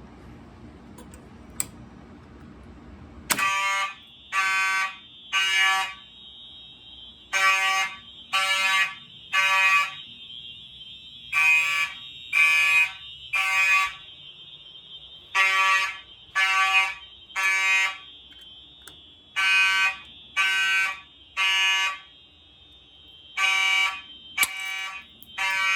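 About three seconds in, a sharp snap as the ESL pull station is pulled and its glass rod breaks. At once the fire alarm horns, among them a first-generation Gentex HG horn, start sounding the temporal code-3 evacuation pattern: three blasts, a pause, then three more, repeated about six times. Under them a second alarm gives a steady, unbroken high tone, the device set to continuous.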